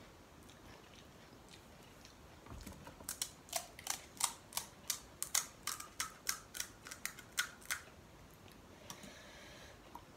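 Crisp pani puri shell being chewed: a run of sharp crunches, about three a second, for about five seconds, then a brief scrape near the end.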